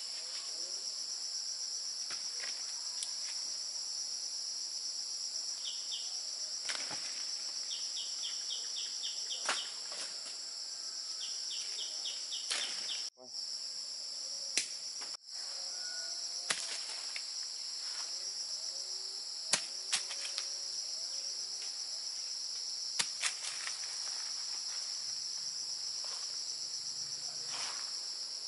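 Steady, high-pitched insect chorus of cicadas or crickets, with a few short runs of rapid chirping and scattered faint clicks and knocks. The chorus breaks off for an instant twice.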